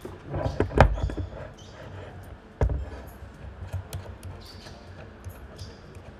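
Handling noise as a smartphone is fitted into a clamp-style mobile phone holder on a tripod pole: a cluster of knocks and clicks in the first second or so, a sharper knock about two and a half seconds in, then lighter clicks and rubbing as the holder is tightened.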